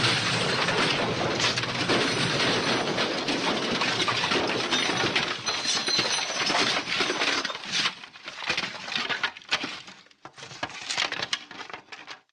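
Long crash sound effect: a dense clatter of breaking and smashing debris, glass and wood among it, starting abruptly. After about eight seconds it thins into scattered clinking and tinkling pieces settling, then cuts off.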